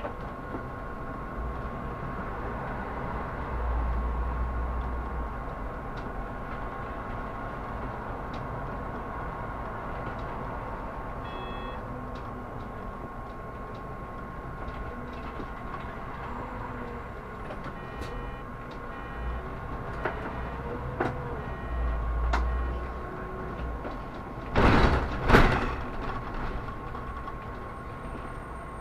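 Solaris Urbino 18 articulated city bus running, a steady hum with a steady whine over it. A few short beeps sound partway through, and two loud hisses come near the end.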